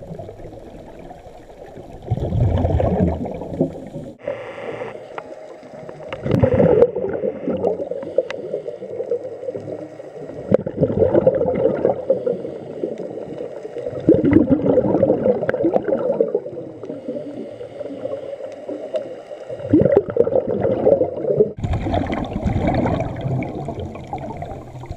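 Scuba regulator breathing recorded underwater: a gurgling rush of exhaled bubbles every three to four seconds, with a short hiss of inhalation between them.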